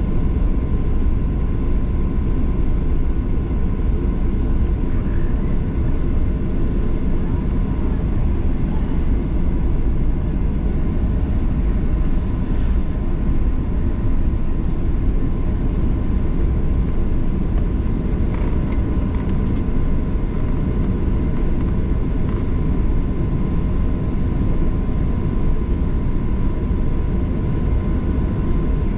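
Boeing 737-800 passenger cabin noise: a steady, loud rumble of the CFM56 engines and airflow, with a faint constant whine, unchanging throughout.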